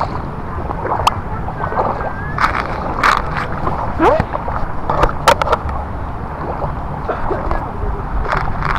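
Muddy floodwater in a flooded rice paddy sloshing and splashing as a person moves through it with arms in the water, with several sharp splashes over a steady low rumble.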